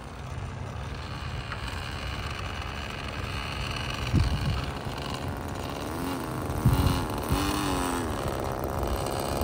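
Small two-stroke O.S. 15LA glow engine of a balsa RC plane running at low throttle as the plane taxis, its pitch rising and falling a few times in the second half. Two low thumps about four and seven seconds in are the loudest moments.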